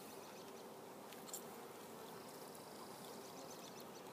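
Faint, steady buzzing of honeybees flying around an open hive, with a light tick a little over a second in.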